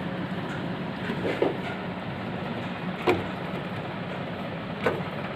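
Three short sharp clicks, about a second and a half to two seconds apart, from a RAM module and the plastic latches of a motherboard memory slot as the stick is handled and fitted, over a steady low hum.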